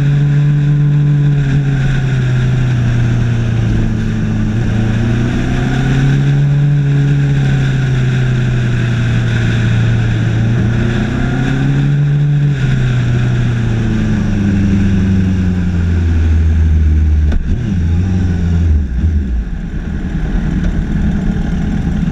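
Suzuki GSX1250FA's inline-four engine running under wind rush, its pitch rising and falling with the throttle. About twelve seconds in the engine note drops as the bike slows, and near the end it settles to a steady idle as the bike pulls up.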